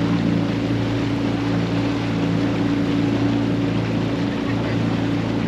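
A small boat's outboard motor running steadily at low speed, its even drone unchanging, over a hiss of wind and water.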